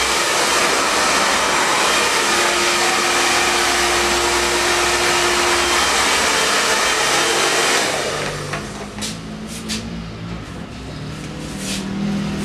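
Hand-held hair dryer blowing steadily, switched off about eight seconds in; a few light clicks follow.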